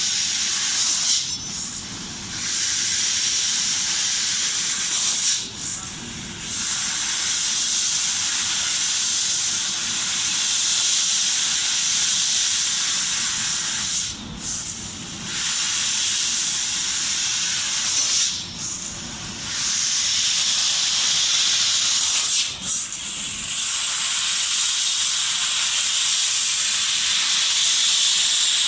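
Laser cutting machine hissing steadily and loudly with its cutting-gas jet, breaking off briefly about five times.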